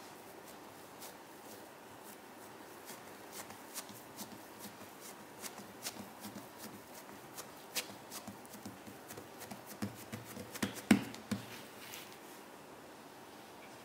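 Hands kneading and pressing a ball of bread dough on a silicone baking mat: soft pats and scuffs, more frequent after the first few seconds, with the loudest taps about ten to eleven seconds in.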